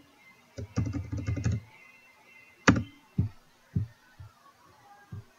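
Computer keyboard being typed on: a quick run of keystrokes about a second in, then one sharp key click and a few spaced single taps.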